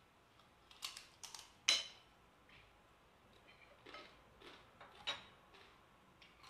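A metal spoon clinking and scraping against a ceramic bowl while eating, several light clinks, the loudest about a second and a half in.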